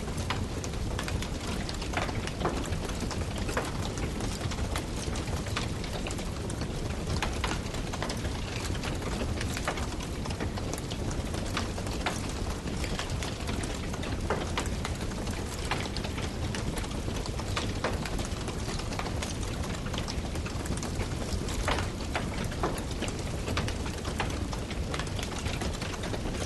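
Firewood burning with steady crackling, sharp pops scattered at irregular intervals over a constant low rumble of the flames.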